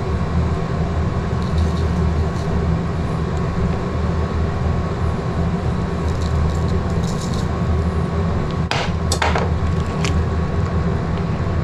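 Gas stove burner running with a steady low rumble under a steel soup pot. Near the end a ladle knocks against the pot a few times.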